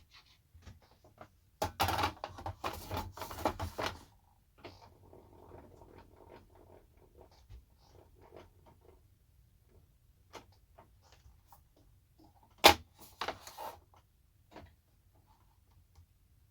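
Wood and a jig being handled on the bench: a burst of clattering knocks, then softer rustling and scattered light ticks, and near the end one sharp, loud click followed by a short clatter. No saw or motor runs.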